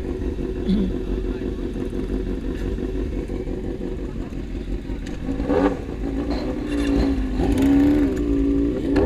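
Motorcycle engine running steadily under way, its pitch rising and falling several times in the second half as the throttle changes.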